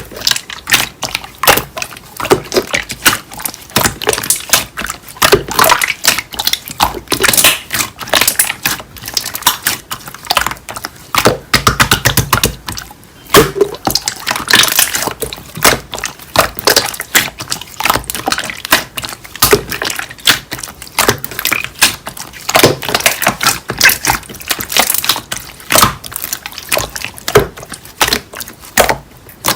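Hands squishing, pressing and poking slime: a dense, irregular run of sticky clicks, pops and wet squelches.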